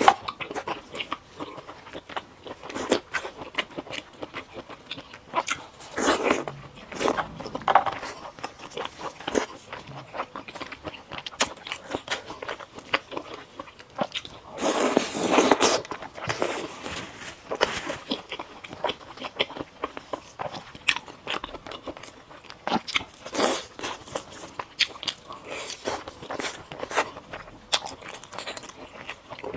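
Close-miked eating: biting into and chewing skewered oden and fried food, with many short, crisp crunches and wet chewing throughout. A louder, noisier stretch comes about fifteen seconds in.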